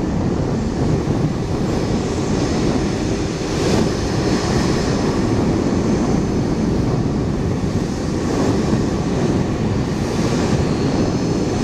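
Bombardier CRJ-700's twin rear-mounted GE CF34 turbofans at climb power after takeoff: a steady, deep jet rumble with a faint high whine over it.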